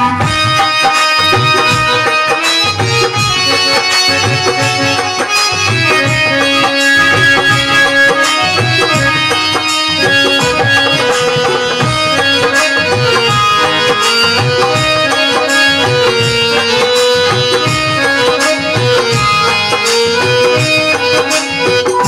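Instrumental break in a Haryanvi folk bhajan: a melody line of held notes moving step by step over a steady hand-drum rhythm, with no singing.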